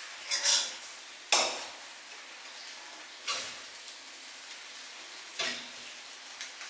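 Fried rice being stirred and tossed in a kadai: a utensil scrapes through the rice against the pan four times, a second or two apart, over a faint steady sizzle.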